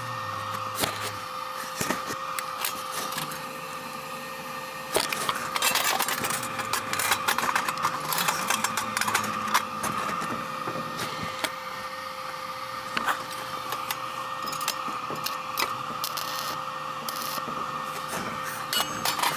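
Stick-welding arc of a SUZUKID Sticky 140 welder crackling and sputtering irregularly over a steady hum.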